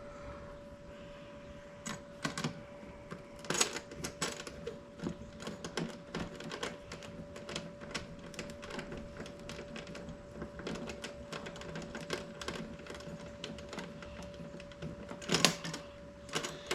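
Rapid, irregular light clicking and tapping of parts being handled, with a few louder knocks about two, three and a half and fifteen seconds in, over a faint steady hum.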